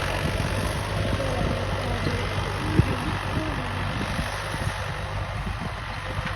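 Al-Ghazi tractor's diesel engine running steadily while ploughing, with one sharp click about three seconds in.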